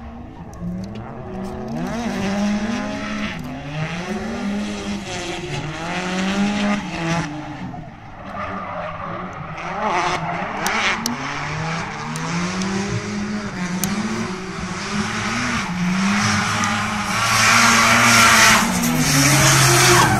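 Drift car engine revving up and down over and over, with tyres squealing and skidding as it slides. The tyre noise builds from about halfway and is loudest near the end, as the car comes closer.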